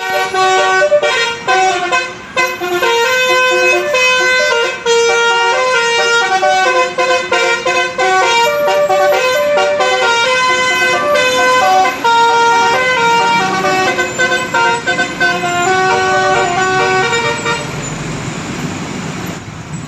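Bus telolet musical air horn playing a long melody of stepped notes, several horn tones sounding together, for about seventeen seconds. It then stops, leaving a low rumble of engine and road noise.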